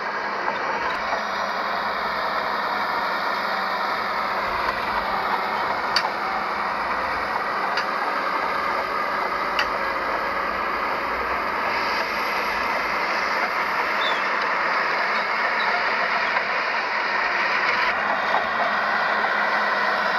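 Heavy diesel earthmoving machinery running steadily at a construction site, with a low steady hum and scattered metallic clicks and clanks.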